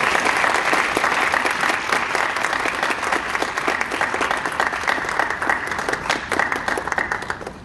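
Audience applauding: steady clapping that tapers off near the end.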